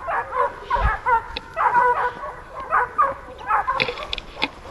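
Hunting dogs barking repeatedly at a wild boar, short pitched barks about two a second.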